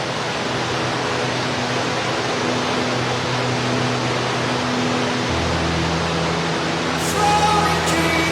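Waterfall water rushing in a steady, even wash of noise, with low held musical tones underneath that change about five seconds in.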